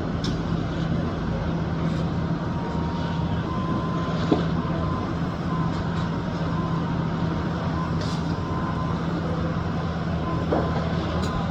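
Construction machinery running: a steady engine drone with a low hum, a faint high whine that comes and goes, and a few sharp knocks, one about four seconds in and another near the end.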